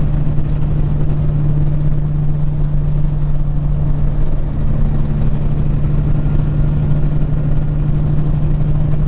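Peterbilt 379 diesel truck engine running steadily under way, a constant low drone with road noise, heard from inside the cab.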